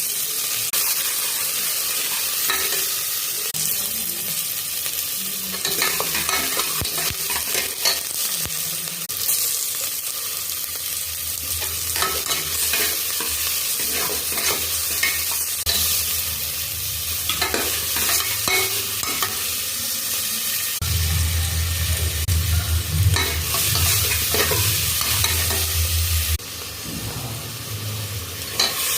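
Food frying in hot oil in a pan, sizzling steadily, while a spoon or ladle stirs it with repeated scrapes and taps against the pan. A low hum comes in for about five seconds near the end.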